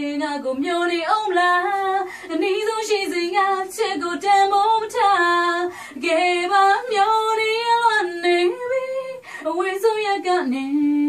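A woman singing solo, a flowing melody of held and sliding notes, ending on a long steady note near the end.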